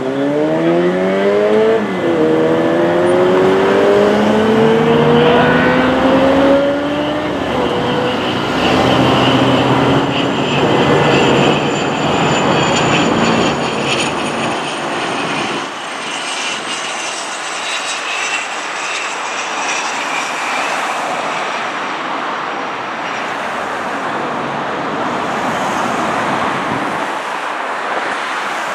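A vehicle engine revving up over the first several seconds, its pitch dropping once at a gear change about two seconds in. Then the steady roar of the Cessna 525 CitationJet's twin Williams FJ44 turbofans as the jet passes overhead on approach, with a faint high whine slowly falling in pitch as it goes by.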